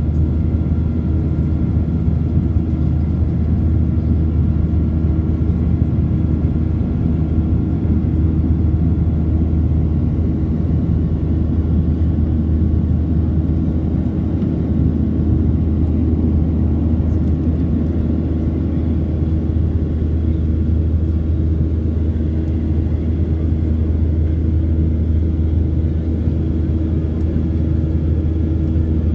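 Steady cabin noise of a Boeing 737-800 climbing out after takeoff: its CFM56-7B turbofan engines and the rush of air past the fuselage, heard as a constant low drone with a few steady tones above it.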